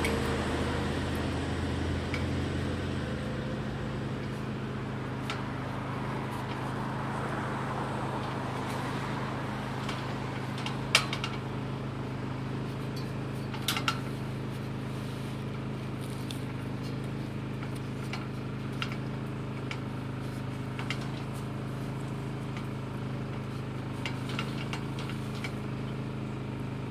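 Steady low mechanical hum, with a few sharp knocks of a person climbing on a steel scaffolding frame, the loudest about eleven and fourteen seconds in.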